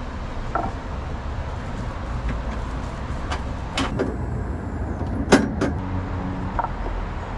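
Background noise at a street-food stall: a steady low rumble with a few sharp clicks and knocks, the loudest a little past five seconds in.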